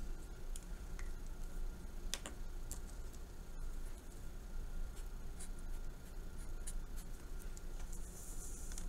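Marker writing on paper: faint scattered ticks and light strokes, then a longer scratchy stroke near the end.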